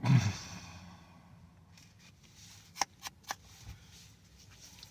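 A man's short breath out, fading within half a second, then three faint clicks close together near the middle.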